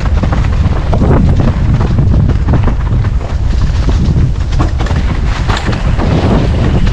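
Wind buffeting the microphone: a loud, continuous low rumble that rises and falls irregularly.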